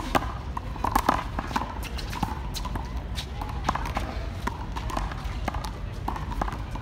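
Handball rally: sharp, irregular smacks of the small rubber ball struck by hand and hitting the concrete wall and court.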